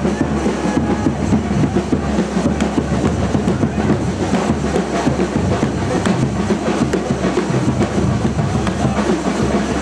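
Loud, dense drumming with closely packed strokes.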